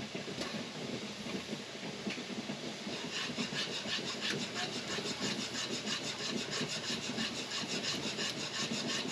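Stainless whisk stirred vigorously through thick cooking strawberry rhubarb jam in a large pot, scraping the pot in a quick even rhythm of about five strokes a second from about three seconds in.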